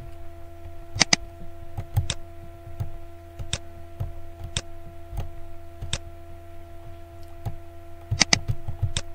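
Computer mouse button clicks, about ten sharp, irregular clicks, some in quick pairs, as a background eraser tool is clicked over specks in Photoshop. A steady electrical hum runs underneath.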